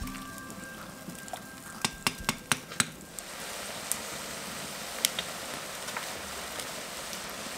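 Lamb stew sizzling in a cast-iron pot over a wood fire, with sharp crackles from the burning wood. The crackles come in a quick cluster about two seconds in, then a steady hiss with the odd pop.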